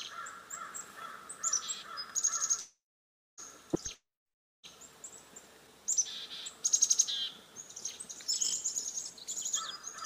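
Chickadee giving rapid, harsh chick-a-dee calls loaded with many repeated 'dee' notes: an intense mobbing alarm at a northern saw-whet owl perched close by. The recording cuts out briefly twice, about three and four seconds in.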